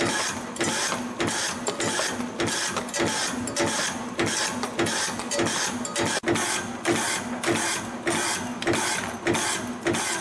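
CNC retaining-ring making machine coiling flat wire and punch-cutting each ring, running in an even repeating cycle of about one and a half to two strokes a second, about 100 rings a minute.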